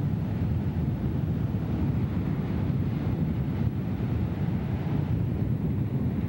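Wind blowing on the camcorder microphone as a steady low rush, with surf breaking on the shore.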